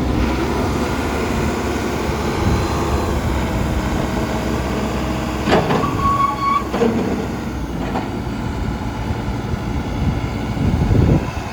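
Terex TLB840 backhoe loader running steadily while its hydraulics are worked. Metal knocks come about five and a half and eight seconds in, and a short high squeak about six seconds in.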